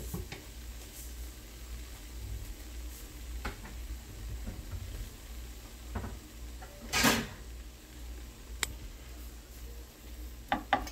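Dishes and cupboards being handled while a serving plate is looked for: scattered knocks and clicks, with a louder clatter of crockery about seven seconds in and two sharp knocks near the end.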